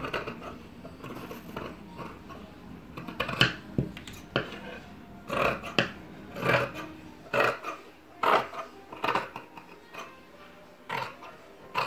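Large dressmaker's shears cutting through fabric: a series of sharp snips, roughly one a second, with a pause near the end.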